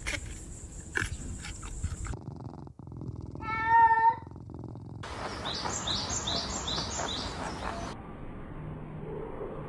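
A cat meows once, loud and pitched, about three and a half seconds in. Before it come crunching clicks of a giant panda chewing bamboo, and after it a run of about five short high chirps.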